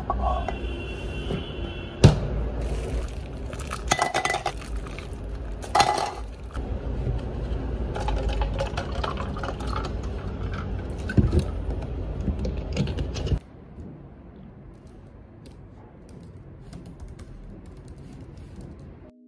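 A clear drinking cup knocked and clinked on a kitchen counter, then a drink poured from a plastic bottle into it. About two-thirds of the way through this stops suddenly and is followed by quieter, soft laptop keyboard typing.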